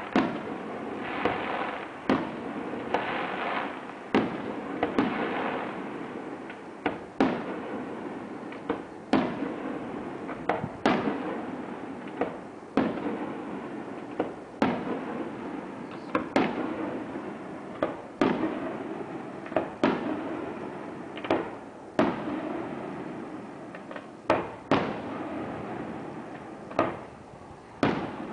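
Aerial fireworks display: a string of shell bursts, a bang every second or two, each followed by a fading rumble. In the first few seconds, crackling fills the gaps between bursts.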